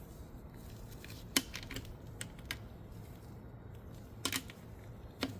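Scattered sharp metallic clicks and taps as transmission gears and synchro parts are fitted and seated on the gearbox shaft.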